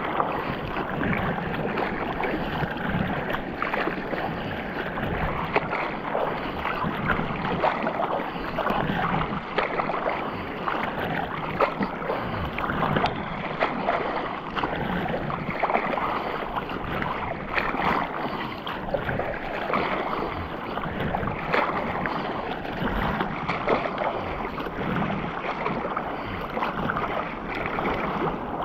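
Sea water sloshing and splashing close against a camera at the surface of choppy sea during an open-water swim: a constant, irregular wash of splashes.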